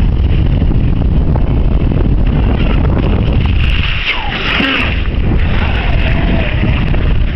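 Wind buffeting the microphone in a steady low rumble, with a brief higher sound that glides up and down about four seconds in.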